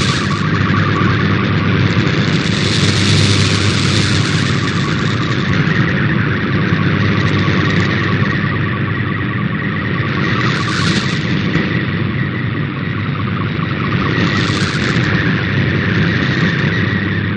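Shortwave radio reception of a digital MFSK data transmission: a band of warbling data tones buried in loud static, with a steady mains-type hum underneath and hiss that swells and fades every few seconds as the signal fades.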